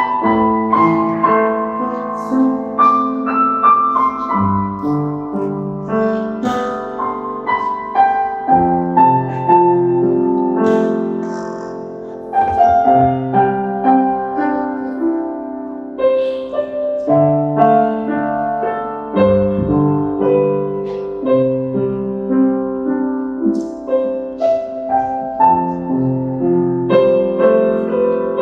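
Solo grand piano playing a melody over changing lower chords, with notes ringing on under the sustain.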